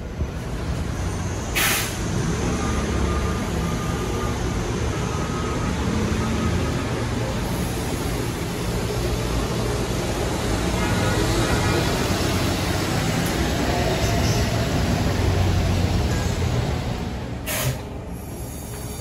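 Hybrid city transit bus running, with a steady engine and road rumble. Two short hisses of air from its air brakes come about two seconds in and near the end, and after the second the sound drops a little.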